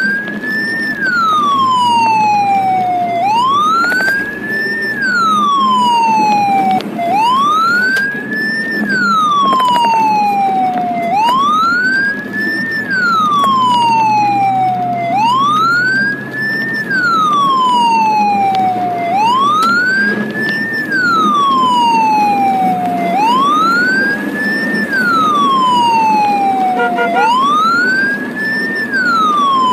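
Ambulance siren wailing, each cycle rising quickly and then falling slowly, repeating about every four seconds, over the steady engine and road rumble of the moving ambulance, heard from inside the cab.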